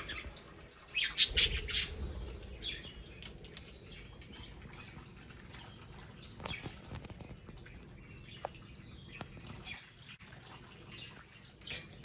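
Budgerigars chirping and squawking, loudest in a short burst of calls about a second in, then scattered quieter chirps.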